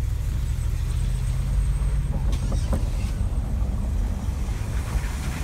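Dodge pickup truck driving slowly, a steady low engine and road rumble, with a few short knocks about halfway through.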